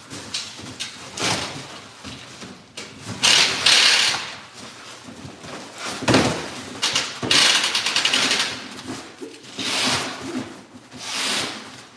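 Cordless power driver run in several short bursts, each about a second or less, backing out the fasteners of a steel shipping crate. The longest and loudest burst comes about three to four seconds in.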